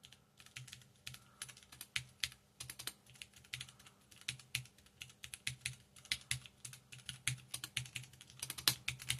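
Typing on a mechanical keyboard fitted with stock Cherry MX switches: a steady, irregular run of key clicks, several a second, with a louder flurry near the end.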